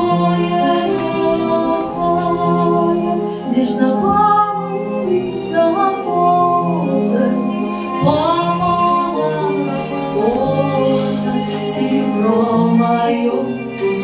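Music: a woman singing a slow, gliding melody over sustained instrumental accompaniment.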